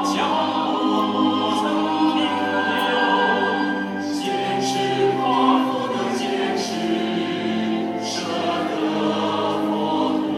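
A choir singing a slow piece with long held notes, accompanied by music.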